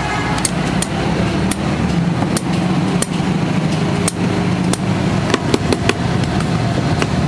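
Lead-acid battery plates clicking and knocking together as they are handled and stacked, about a dozen sharp clicks at uneven intervals, over a steady low drone of street traffic.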